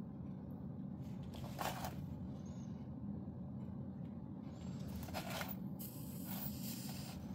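Faint scratchy scraping as the hot tip of a rechargeable pen-style soldering iron is rubbed in the tip cleaner in its case. The longest stretch comes near the end, after a shorter scratch about a second and a half in, over a low steady background hum.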